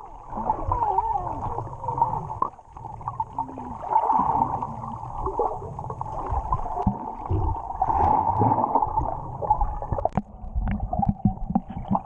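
Water gurgling and bubbling, heard muffled through a submerged camera's microphone while snorkelling, rising and falling in level.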